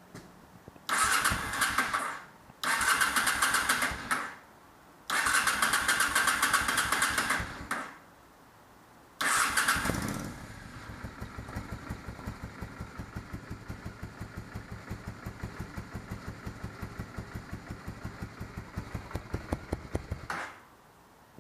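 An engine on choke is cranked in three bursts that don't catch. On a fourth try, about nine seconds in, it fires and runs with a regular pulsing beat for about ten seconds, then cuts off suddenly.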